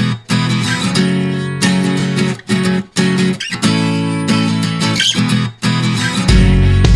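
Background music on acoustic guitar, plucked and strummed chords in a steady rhythm, with short breaks between phrases.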